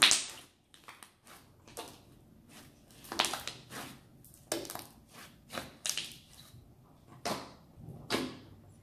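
A large batch of slime, over a kilogram, squeezed and kneaded by hand, giving short clicks and pops about twice a second, the loudest right at the start.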